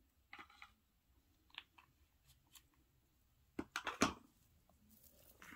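Light clicks and taps of small objects handled on a countertop, with a quick cluster of sharper knocks about three and a half to four seconds in.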